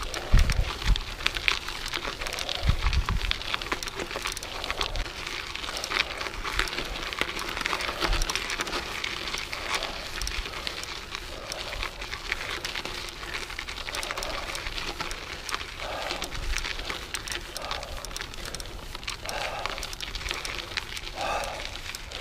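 Mountain bike rolling over a loose gravel road, its tyres crunching in a dense, even crackle. A few low thumps come in the first few seconds.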